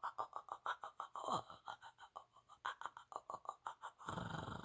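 A woman's rapid whispered stream of channeled 'light language' syllables, about six or seven a second, with a brief falling voiced slide about a second in. Near the end the syllables give way to a long breathy hiss.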